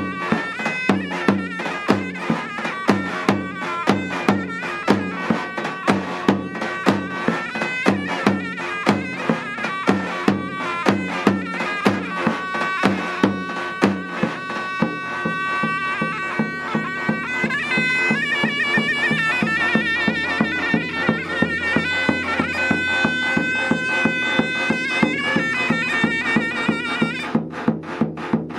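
Davul and zurna playing a folk tune: the zurna's shrill, reedy melody runs throughout while the davul beats steady strokes, about three a second. The drum drops out about halfway and comes back near the end, as the zurna briefly stops.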